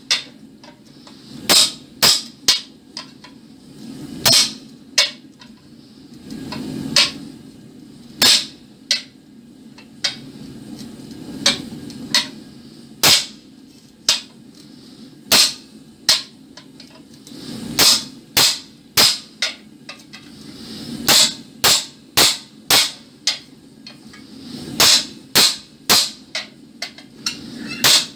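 Hammer blows on a split iron bar lying on an anvil, sharp ringing metal strikes coming in irregular runs of two to four with short pauses between.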